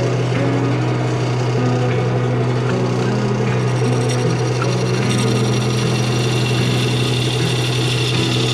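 Bowl gouge cutting the inside of a spinning cherry bowl on a wood lathe: a continuous rough scraping of the cut over a steady low hum.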